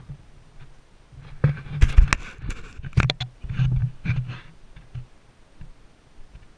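Handling noise from a handheld camera: a burst of knocks, clicks and rubbing starting about a second and a half in, loudest for two or three seconds, then dying away to a few faint ticks.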